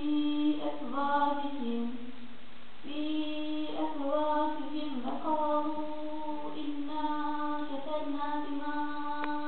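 A single high voice chanting Quran recitation in long, drawn-out melodic phrases, holding level notes with short ornamental turns and pausing for breath about two seconds in.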